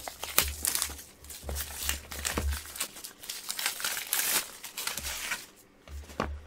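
Clear plastic shrink-wrap being torn and peeled off a cardboard box, crinkling and crackling. It stops about five and a half seconds in, followed by a single click.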